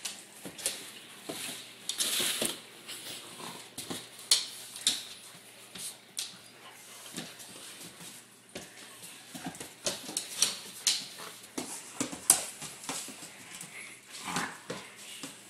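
A German Shepherd and a Doberman play-wrestling on a wooden floor: irregular scuffling and sharp clicks, mixed with short dog noises.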